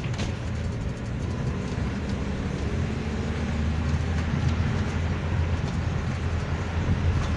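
Steady low rumble of a vehicle driving along a road, engine and road noise heard from on board. It starts suddenly.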